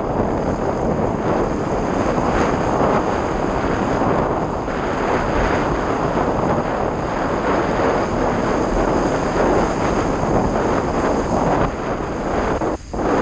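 Steady rush of wind buffeting a windsurf mast-top camera's microphone while the board sails across the water, with a brief drop in the noise near the end.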